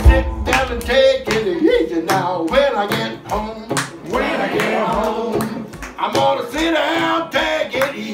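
A man singing over a strummed hollow-body archtop electric guitar, played live in a room.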